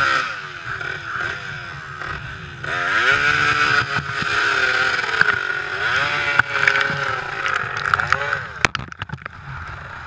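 Small dirt bike's engine revving up and down again and again while the bike is stuck in mud. Near the end a few sharp knocks, and the engine note drops away.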